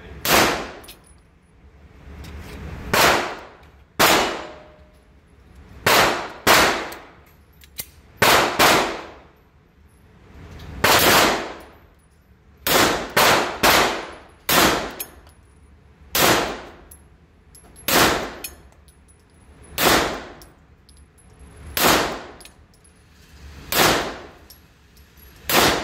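Beretta Inox pistol firing a long string of single shots, mostly one to two seconds apart with a few quicker doubles and a triple. Each shot rings off the walls of an indoor range.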